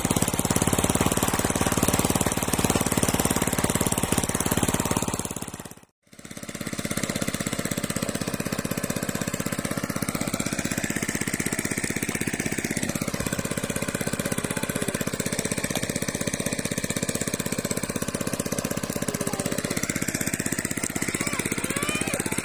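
Engine of a water pump running steadily with a rapid knocking beat as it pumps water out of a pond. The sound cuts out for a moment about six seconds in, then carries on a little quieter.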